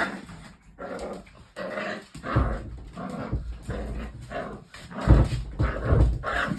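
Two dogs play-fighting, with short growls and a few low thumps as they scuffle.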